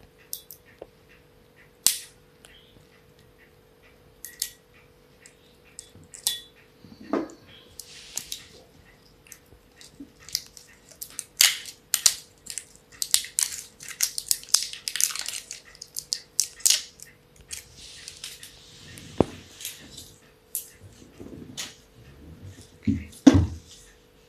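Scissors snipping through the foil seal on a soda maker's CO2 cylinder neck, and the foil crinkling and tearing as it is peeled off: a long string of sharp clicks and crackling rustles. Near the end there are a couple of knocks as the metal cylinder is laid down on the table.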